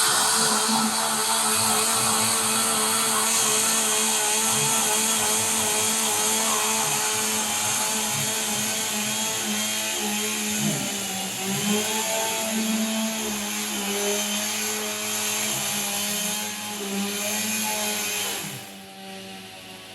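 Gas chainsaws running at high speed, cutting a notch in a large log. The engine pitch dips briefly a few times around the middle, and the sound drops off sharply near the end.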